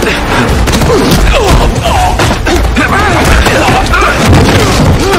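Action-film soundtrack: a close-quarters fight with quick blows and scuffling, over a loud score with a heavy, steady low pulse.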